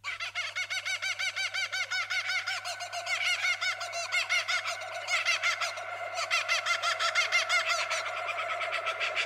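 Birds chirping rapidly, a dense run of short arched notes at about eight a second, over a faint steady low hum.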